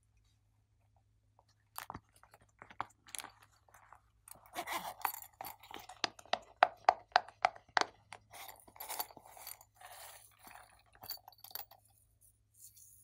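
Silicone pop-it toy's bubbles being pressed and popped: a quick run of about a dozen sharp pops, three or four a second, in the middle, with softer scattered clicks and rustles of handling before and after.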